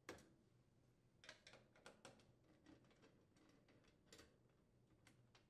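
Faint, irregular clicks and light metal ticks of a quarter-inch nut driver turning out the rear control-panel screws on a washer and the screws being lifted out.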